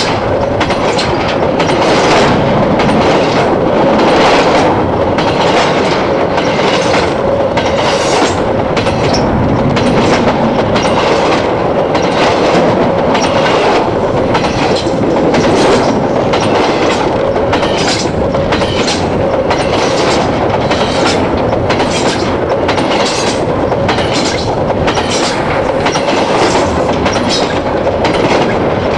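Freight cars rolling past at very close range: a loud, steady rumble of steel wheels on rail with an even clickety-clack a little over once a second, and a steady ringing tone underneath.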